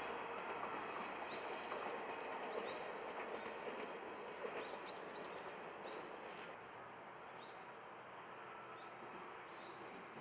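Distant running noise of the Kiya 141 diesel track-inspection train, fading away about six seconds in, with birds giving short, rising chirps again and again.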